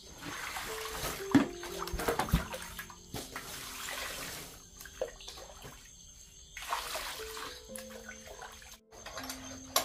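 Water splashing and being poured, with background music of long held notes.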